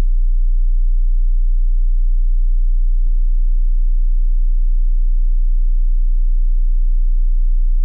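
Small ported acrylic subwoofer playing a steady 30 Hz test tone at 1 watt, with fainter overtones above it and a little port turbulence. A faint click about three seconds in.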